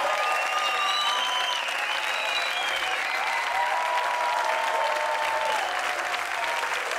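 Studio audience applauding and cheering, with clapping and voices shouting over it.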